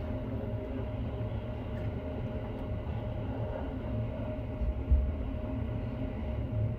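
JR West 321 series electric train running on track, heard from inside the leading car: a steady low rumble of wheels on rail with a steady hum over it. About five seconds in there is a single heavy thump.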